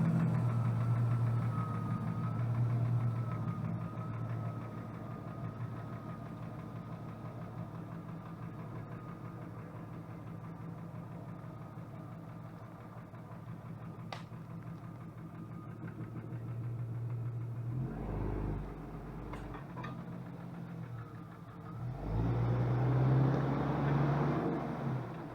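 Jeep Cherokee XJ engine running steadily, with a thin whine above it, then picking up twice, briefly about 18 seconds in and more strongly from about 22 seconds, as the Jeep is worked backward to free a branch wedged under the body against the exhaust.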